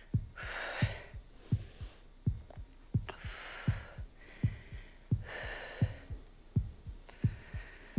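Heartbeat sound effect: steady low double thumps, a little faster than one beat a second, with soft whooshing noise between some of the beats.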